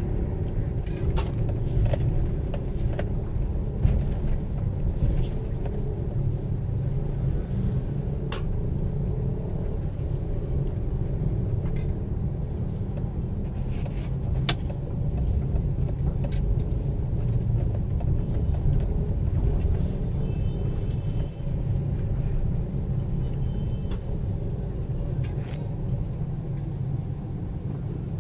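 Steady low rumble of a car's engine and road noise heard from inside the cabin while driving, with scattered sharp clicks.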